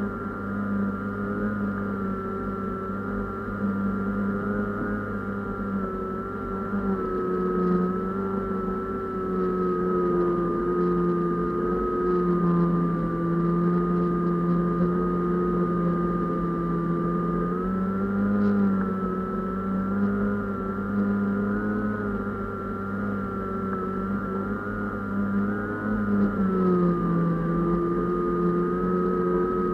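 Motor and propeller of a small fixed-wing UAV heard from its onboard camera: a steady drone with a high whine above it, the pitch dipping and rising slightly a few times.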